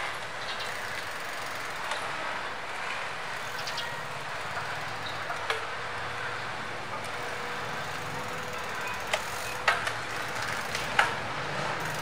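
Foxter FT301 mountain bike rolling on concrete and braking, with a few sharp clicks in the second half and no brake squeal: the brakes have stopped squeaking now that the oil-contaminated pads and caliper are cleaned.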